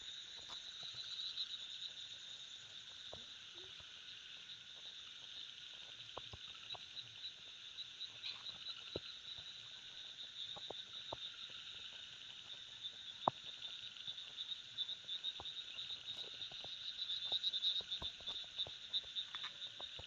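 A steady, high-pitched night chorus of calling creatures: a fast pulsing trill that swells a little near the end. Scattered faint ticks sound over it, one louder about two-thirds of the way through.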